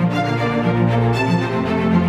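Instrumental background music with a held bass note that shifts to a lower one about one and a half seconds in.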